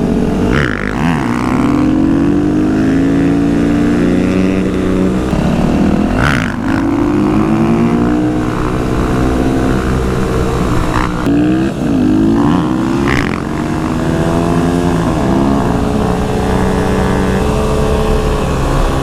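Several motorcycle engines revving together, their pitch climbing and falling over and over as the riders work the throttles for wheelies. Short sharp noises cut through about six, eleven and thirteen seconds in.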